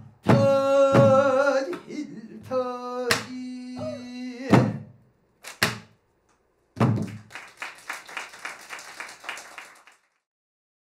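Male pansori singer holding the final sung phrases in a strained, wavering voice over sharp strokes of a buk barrel drum. The drum gives a few last strokes after the voice stops, then about three seconds of clapping fades out.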